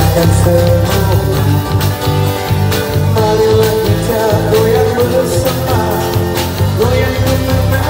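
Live rock band playing through a PA system: amplified guitars, a walking bass line and a drum kit keeping a steady beat, with a male voice singing over them.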